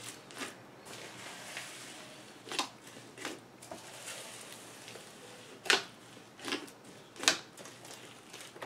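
Hands kneading and folding a large mass of floam slime packed with styrofoam beads: a soft rustle of beads with about half a dozen sharp pops and crackles from the slime.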